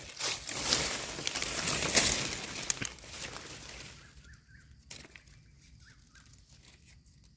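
Dry leaves and brush rustling and crackling, dense with small snaps, for about four seconds, then dying down to a quiet background with a few faint chirps.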